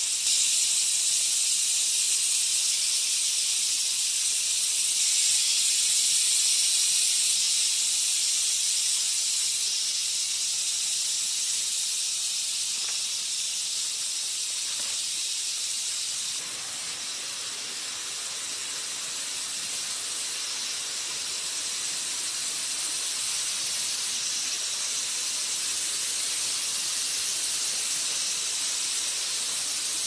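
Cicada chorus: a steady, dense high-pitched hiss that gets slightly quieter a little past halfway.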